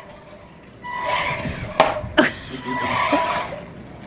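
Electric motor of a remote-control toy truck whining in two spurts as it drives, with two sharp knocks about two seconds in.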